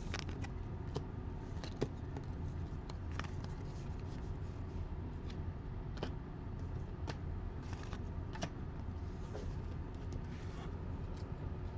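Steady low hum with faint, scattered clicks and taps of trading cards being handled and set down on a table.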